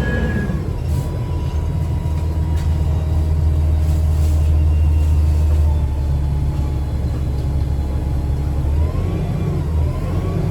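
A 2009 Gillig BRT 40-foot transit bus running, heard from on board: a steady low rumble with a faint steady whine, and a brief rising-and-falling whine about nine seconds in.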